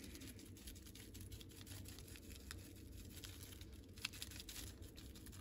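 Faint crinkling of a paper seasoning packet and light, irregular pattering as taco seasoning is shaken from it onto shredded chicken in a slow cooker, with one sharper click about four seconds in.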